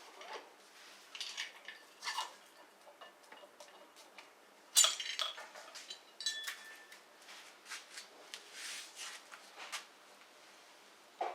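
Light metallic clinks and taps as motorcycle engine top-end parts are handled. The loudest is a ringing clink about five seconds in, with a smaller ringing clink a second and a half later.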